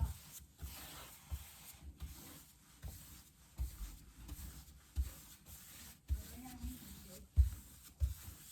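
Hard wax oil being rubbed into a wooden tabletop with a cloth or applicator, a soft steady rubbing, broken by irregular dull low thumps.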